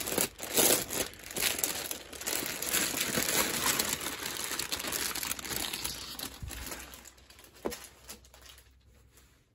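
A thin clear plastic bag crinkling and rustling as it is handled and a canvas tote bag is pulled out of it. The crinkling thins out over the last couple of seconds, with one sharp tick near the end.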